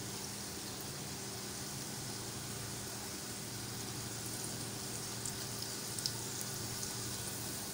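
Oil frying breaded chicken drumsticks in a wok: a steady soft sizzle with a few light crackles, the pieces fried to golden brown and ready to come out.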